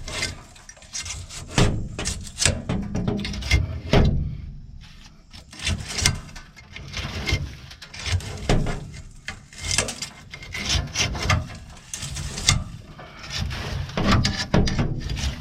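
Irregular rubbing, scraping and knocking at a combine's rear screen that is clogged and packed tight with frogs.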